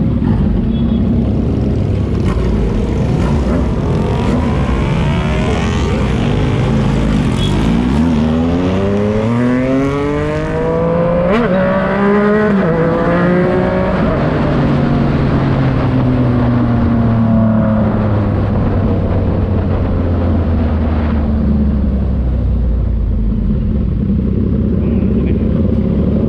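Yamaha MT-09's inline three-cylinder engine through a Racefit Slash aftermarket exhaust, running loud. Its pitch climbs steadily for several seconds about a third of the way in, then winds slowly back down and settles.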